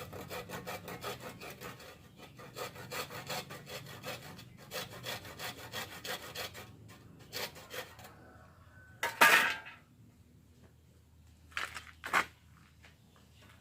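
Hand saw cutting small bamboo with quick, even back-and-forth strokes for about seven seconds. After that comes one louder scraping noise about nine seconds in and two short ones near twelve seconds.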